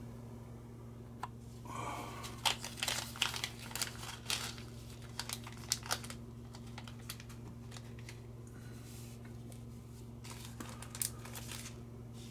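Rustling, crinkling and light clicks of small parts being handled at a workbench, busiest in the first half, over a steady low electrical hum.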